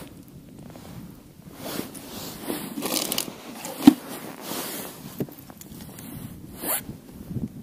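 Irregular rustling and scraping handling noises close to the microphone, with one sharp click about four seconds in.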